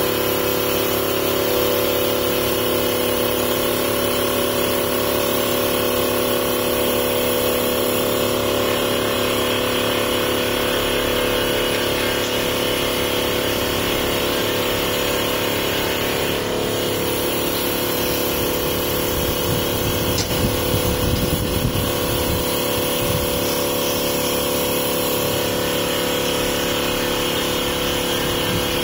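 Small automatic-feed CNC wood lathe running: steady machine hum with several held tones, mixed with cutting noise as the tool turns a spinning wooden blank. About two-thirds of the way through, the sound turns rougher and briefly louder.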